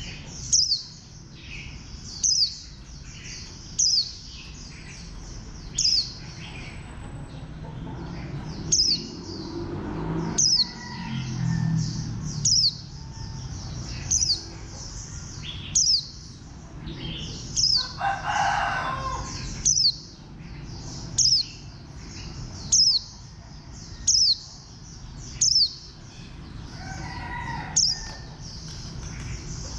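White-eye (vành khuyên) singing, repeating a short, sharp, high note that falls in pitch about every one and a half seconds, over a steady high chatter of song. A louder, lower call lasting about a second comes about two thirds of the way in.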